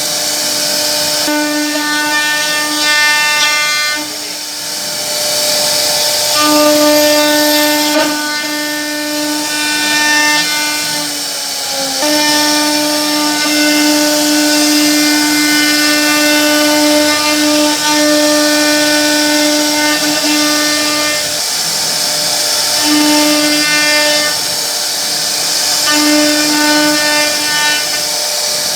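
CNC router spindle running with a steady high whine while its bit carves a wooden board, over a constant hiss of cutting. The whine fades and comes back several times as the cut goes on.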